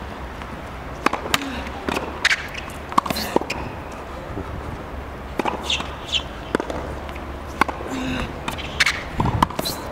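Tennis ball struck back and forth on an outdoor hard court: a string of sharp pops from racket strikes and ball bounces, with a short lull in the middle.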